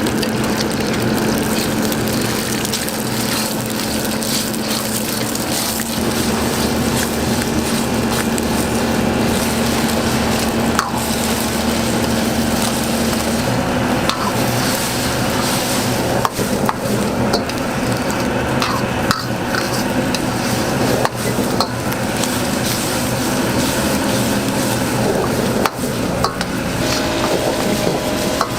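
Egg fried rice sizzling in a hot pan while a utensil stirs and scrapes it, with frequent sharp taps of the utensil against the pan, over a steady hum.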